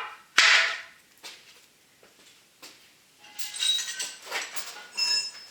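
A sharp knock, a few faint clicks, then a stretch of light metallic clinking and rattling near the end.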